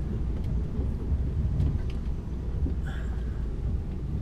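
HGV lorry's diesel engine idling at a standstill: a steady low rumble, with a few faint clicks.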